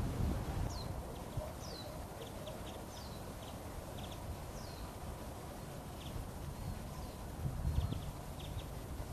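Small birds calling outdoors: four high, thin whistles each sliding downward in the first five seconds, and short clusters of quick ticking chips throughout. Low wind rumble on the microphone, swelling at the start and again near the end.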